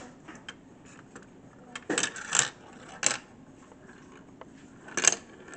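Marbles clattering through a marble run: several sharp clicks and short rattles, bunched about two to three seconds in and again near the end.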